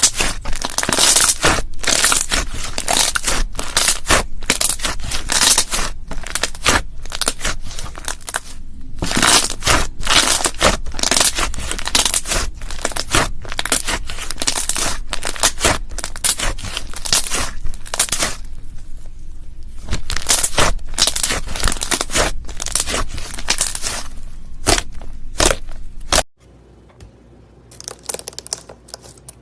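Slime being squeezed and stretched by hand, a dense, irregular run of crackling, crunching and tearing noises that cuts off suddenly near the end.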